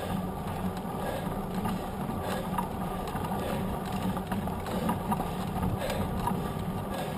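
Mountain bike with knobby tyres rolling along an asphalt road, heard from a camera mounted on the bike: a steady rumble of tyres and wind with the bike's frame and drivetrain rattling and ticking.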